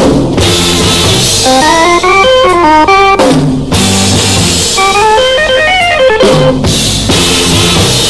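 1965 pop record playing: a drum kit keeps a steady beat under guitar playing quick runs of notes that climb and then fall, repeated in phrases about two seconds long.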